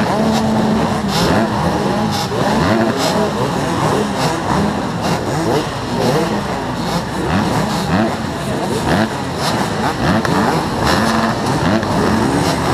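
Many motocross bikes' engines running together, idling with throttles blipped over and over, so that pitches rise and fall on top of one another.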